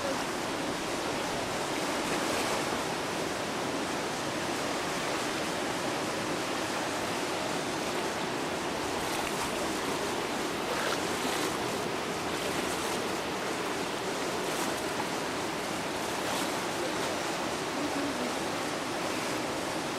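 Floodwater of a swollen river rushing, a steady even roar of moving water.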